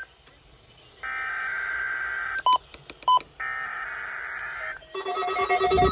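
Emergency Alert System SAME header on NOAA Weather Radio: two screechy digital data bursts, each a little over a second long, with two short beeps between them. About five seconds in, a weather radio's alert alarm starts: a loud, rapidly warbling trill of several tones.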